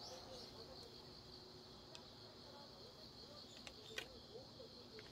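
Faint, steady high-pitched chirring of insects, with a few light clicks from handling plastic vaccine vials and syringes, the sharpest about four seconds in.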